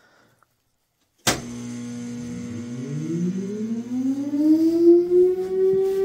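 A sharp click about a second in as the siren is switched on, then an STL-10 outdoor warning siren starts up, its tone winding up and rising steadily in pitch before levelling off near the end.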